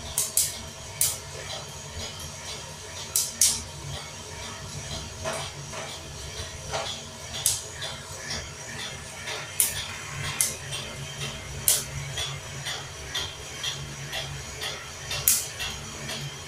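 Coffee beans cracking in a drum roaster over a gas flame: sharp, irregular pops about once a second, over a steady low hum.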